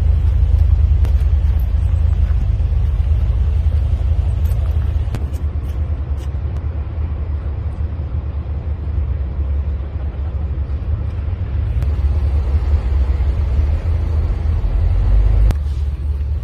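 A loud, steady low rumble with no clear pitch, easing a little about five seconds in and dropping off suddenly near the end.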